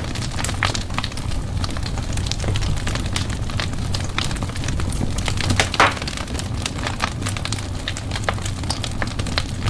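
Fireplace fire crackling, with many small irregular pops over a steady low rumble and one louder pop a little before six seconds in.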